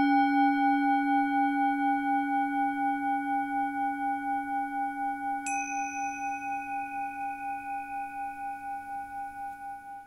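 A singing bowl struck once, ringing with several overtones and slowly fading, its tone wavering in a steady pulse. About halfway through, a second, higher-pitched strike joins and rings on under it.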